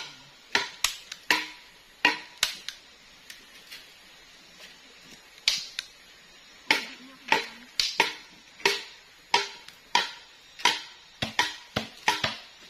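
Blade chopping: sharp woody knocks at an uneven pace, some in quick pairs, each ringing briefly before it fades.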